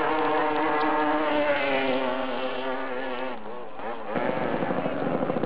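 Long-tail boat engine running at high revs with a buzzing drone. About three and a half seconds in, its pitch dips and sweeps back up, and a rougher, pulsing engine note takes over.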